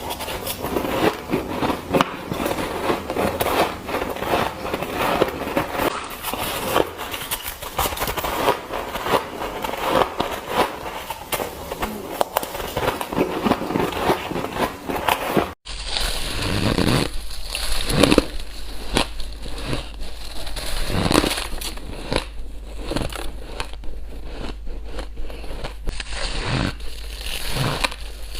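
Close-up crunching of shaved ice being bitten and chewed from a spoon, a dense, irregular crackle of icy crunches. About halfway through there is an abrupt cut, after which the crunches come more spaced out over a steady low hum.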